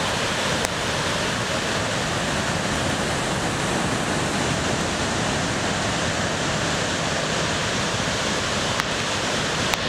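Steady, even rush of Victoria Falls' water pouring over the gorge edge, its spray drifting down like rain, with a few brief clicks, two near the end.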